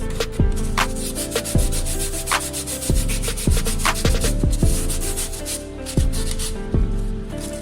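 Background music with a beat and deep kick drums whose pitch falls, over rapid rasping strokes of hand-sanding on a fiberglass bumper.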